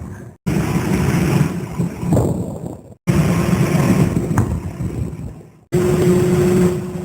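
Steady low mechanical running noise with a faint steady hum, from equipment in short back-to-back clips. It cuts off abruptly three times, about every two and a half seconds.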